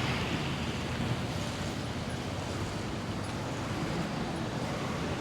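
Steady outdoor rumble of street traffic with wind buffeting the microphone.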